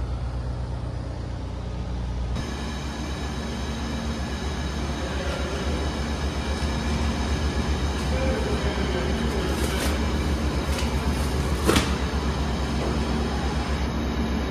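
Steady machinery hum of a warehouse loading dock, with a few short metallic clanks late on, the loudest near the end. For the first two seconds a lower engine-like hum is heard instead, and it changes abruptly.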